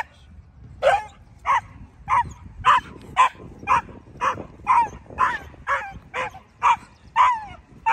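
A young reactive dog barking over and over on the leash: short sharp barks at about two a second, many dropping in pitch at the end.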